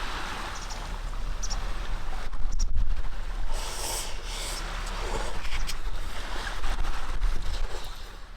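Sea waves washing onto a beach, the surf swelling and easing twice, with wind rumbling on the microphone.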